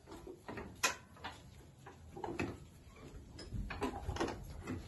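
Two church bells being set swinging by hand: scattered knocks and creaks from their wooden headstocks and fittings, the sharpest about a second in, with no bell strike yet.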